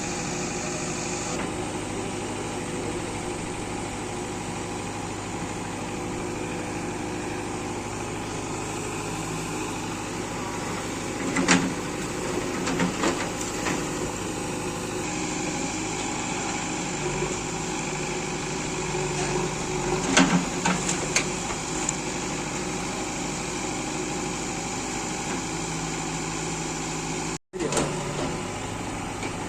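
Backhoe loader's diesel engine running steadily, with a few loud knocks from the machine working, about a third and two-thirds of the way through. The sound cuts out for an instant near the end.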